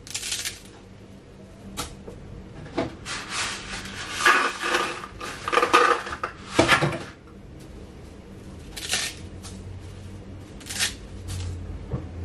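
Dry thin spaghetti snapped by hand: sharp cracks at the start and again a couple of seconds in. For a few seconds in the middle the dry strands rattle and scrape in their cardboard box, and a few more sharp clicks follow near the end.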